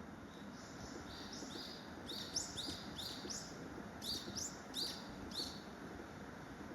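Common kingfisher calling: a run of short, shrill, high-pitched notes, about a dozen in two quick bouts, over steady low background noise.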